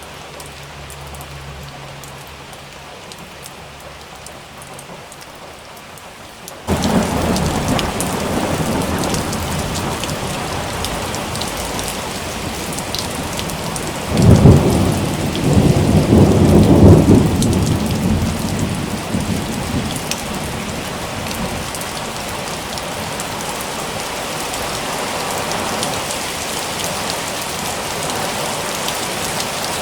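Rain falling steadily, suddenly turning to a much heavier downpour about a fifth of the way in. Roughly halfway through, a long roll of thunder rumbles, loudest in two peaks, then fades back into the heavy rain.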